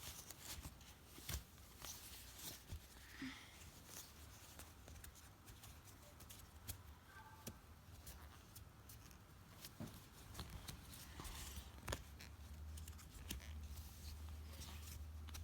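Faint, scattered clicks and rattles of plastic Bakoba construction-toy pieces being handled and pushed into place, over a steady low hum.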